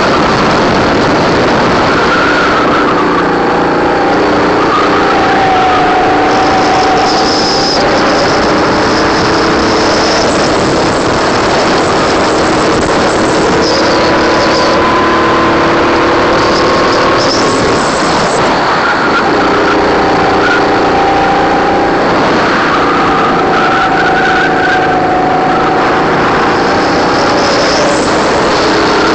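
Racing kart engine heard from on board at speed, its pitch rising on the straight and falling as the kart slows for corners.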